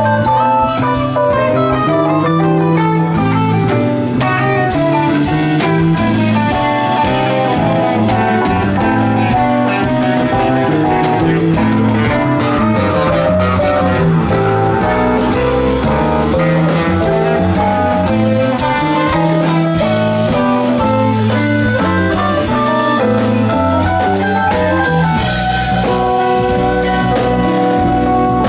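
Live band playing an instrumental passage: electric guitar picking a melodic line over drum kit and a moving bass line, loud and steady throughout.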